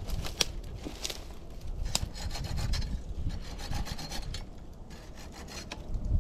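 Hand tool working wood: rough rubbing and rasping strokes with scattered sharp clicks, in a short quicker run of strokes about two seconds in.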